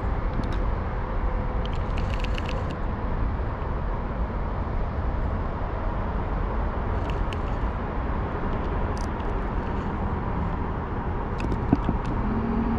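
Motorized pool float's small motor running steadily, a low rumble with a faint whine over it. A few faint clicks come and go, and there is one short sharp tap near the end.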